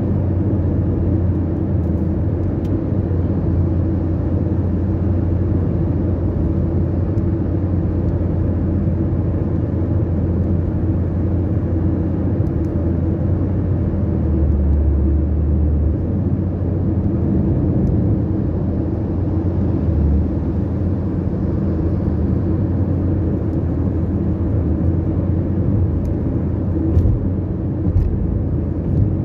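Steady low rumble of road and engine noise heard inside the cabin of a car cruising on a highway, with a couple of light knocks near the end.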